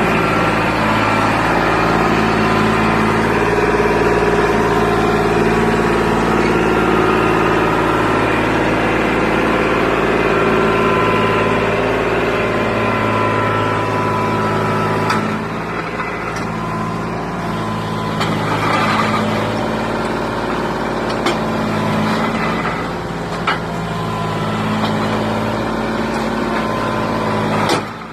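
An engine running steadily at an even speed, with a few faint clicks and knocks in the second half.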